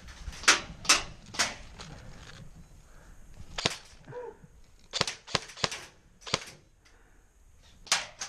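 Airsoft guns firing: about ten sharp, snappy pops at irregular intervals, some in quick runs of two or three.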